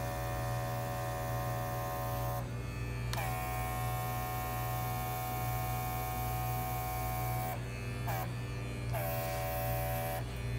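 Small airbrush compressor running with a steady hum while the airbrush blows air over wet acrylic paint; the hiss of air cuts out twice when the trigger is released and comes back with a brief dip in the motor's pitch.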